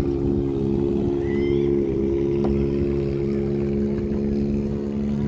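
An engine running steadily at an even speed, a loud, constant hum.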